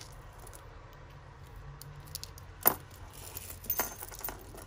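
Small costume-jewellery pieces clinking as they are handled and sorted, with one sharp clink a little past halfway and a few quicker clinks near the end.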